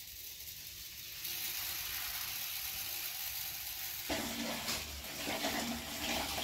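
Granule drain opener pouring from a sachet onto a metal floor-drain grate with a steady hiss. About four seconds in, hot water is poured onto the drain, splashing.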